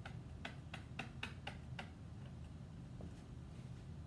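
Pen tip tapping and scratching on an interactive whiteboard while a word is handwritten, making irregular sharp clicks about three or four a second, thinning out after about two seconds, over a steady low hum.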